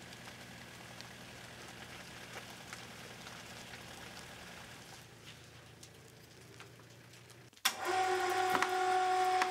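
SUV engine running with a low, steady hum as it slowly tows a loaded trailer. About seven and a half seconds in, this cuts to a louder, steady whine from an electric chain hoist's motor.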